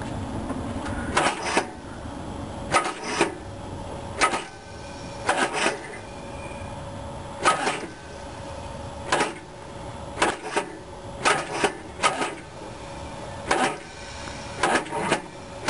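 Rebuilt Chevrolet engine being turned over in short jogs while finding the timing mark: sharp metallic clicks, some single and some in quick pairs, every second or so at uneven intervals, over a faint steady hum.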